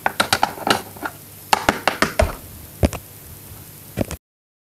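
Quick, irregular light knocks and clicks of hands and a plastic toy figure being handled right at the microphone, about two dozen in three seconds, fewer after that. The sound then cuts off abruptly to dead silence shortly before the end.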